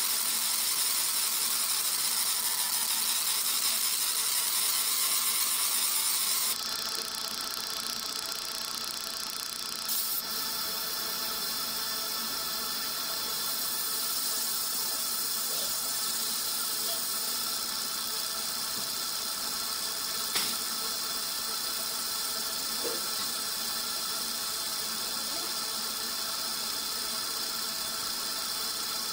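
A 100 W MOPA fiber laser marker at work deep-engraving aluminium: a steady high hiss with several steady whining tones. The upper hiss drops a step about six seconds in, and there are a couple of faint clicks later.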